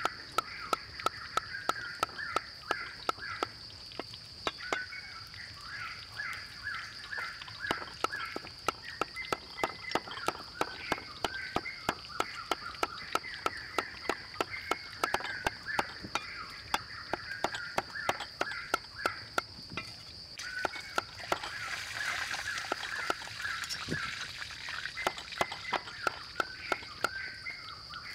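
Heavy cleaver chopping and mincing meat on a thick wooden chopping block: rapid, even knocks, about three a second.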